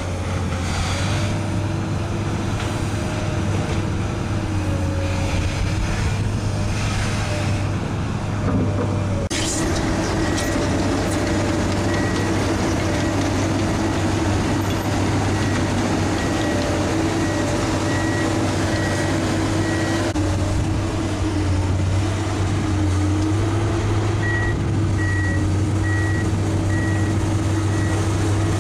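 Komatsu PC200 excavator's six-cylinder diesel engine running under hydraulic load, its pitch dipping and recovering as the machine works. In the second half a high beep repeats about once a second, the machine's travel alarm sounding as the pontoon tracks move.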